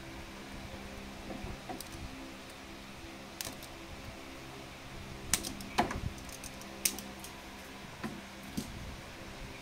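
Handling noise as protective paper wrap is cut and peeled off a plastic figure's sculpted hair: light scattered clicks and taps with paper crinkling. The sharpest clicks come a little past the middle. A steady low hum runs underneath.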